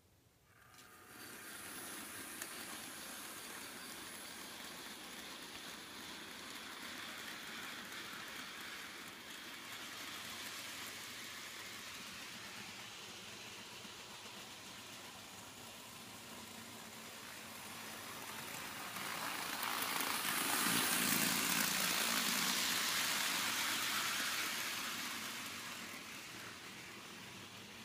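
Model train running: the electric motor of a Bachmann BR Standard 3MT tank locomotive model whirring and its wheels rumbling on the track. The sound starts about a second in, grows loudest about twenty seconds in as the train passes close, then fades.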